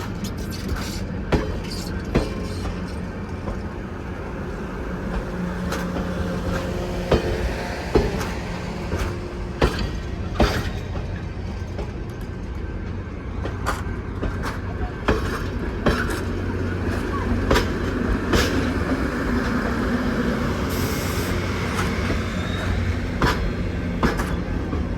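Passenger train rolling along the track: a steady low rumble with irregular sharp clicks and knocks throughout.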